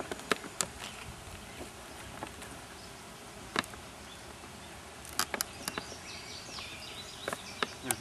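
Swarm of honey bees buzzing steadily around an opened log hive, with a few sharp clicks scattered through it.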